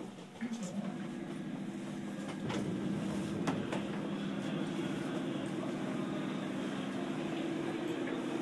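Interior sound of a JR 211 series electric train, heard inside motor car MoHa 210-3025: a steady low hum that grows louder about half a second in and again about two and a half seconds in, with a few sharp clicks.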